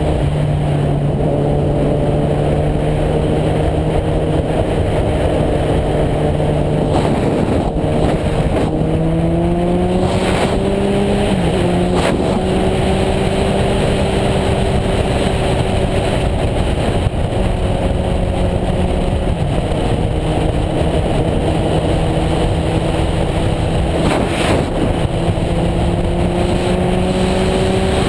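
Suzuki GSX-R 1000 inline-four engine running at highway cruise under rushing wind. Its note climbs about a third of the way in, dips briefly, then holds steady.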